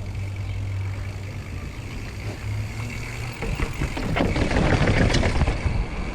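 Mountain bike being ridden on a trail, heard from a helmet camera. A steady low rumble of tyres and wind gives way, about halfway through, to a louder dense clatter of the tyres over rough ground and the bike rattling.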